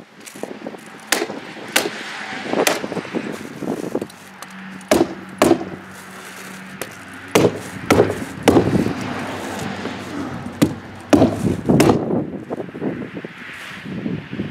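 Hammer tacker driving staples through roll roofing into the wall: about a dozen sharp strikes at irregular intervals, some in quick pairs, with rustling of the roofing between them.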